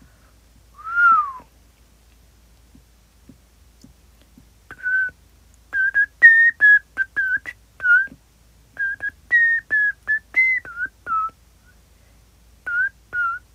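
A young woman whistling a tune through pursed lips: one falling note about a second in, then a run of short notes of changing pitch from about five seconds in, and a few more near the end.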